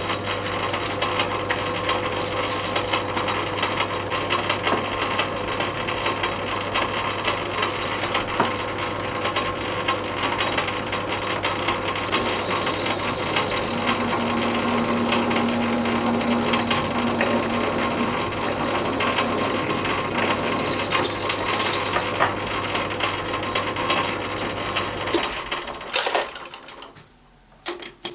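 Myford metal lathe running with a steady motor hum while cutting a cast metal part, then, from about halfway, a tailstock drill boring into the end of the work. The motor stops shortly before the end, followed by a few metallic clicks at the chuck.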